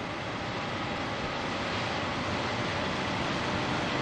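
Steady, even mechanical noise of automated machine tools running on an engine-part machining line, a hiss with a faint hum in it.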